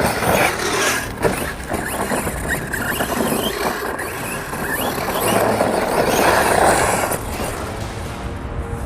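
Arrma Big Rock 6S BLX RC monster truck driving on dirt: a brushless electric motor whining with the throttle, tyres churning the ground, and scattered knocks from the chassis and suspension over rough terrain. It gets louder about five to seven seconds in.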